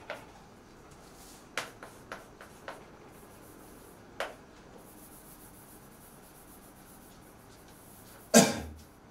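Chalk writing on a blackboard: a few sharp taps and short scratches as chalk strokes land, then a faint steady scraping. A louder, half-second knock-like noise comes about eight seconds in.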